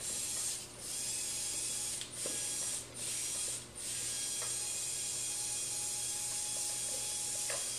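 A servo of a Blade 400 RC helicopter buzzing and chattering nonstop, with a few short breaks in the first four seconds and then steady: the servo has gone berserk and is damaged.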